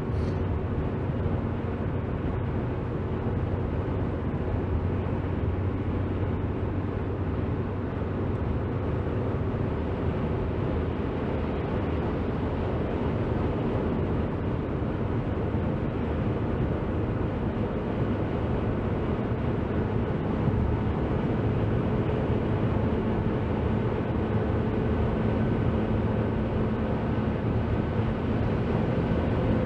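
Steady road and wind noise inside a car's cabin at motorway speed, with a low engine drone underneath, growing a little louder past the middle.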